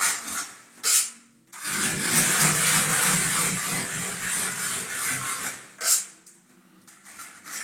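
Plastering trowel scraping across freshly applied stone-textured decorative plaster as it is smoothed and the binder is wiped off. One long rasping stroke through the middle, with a short sharp click about a second in and another near the end.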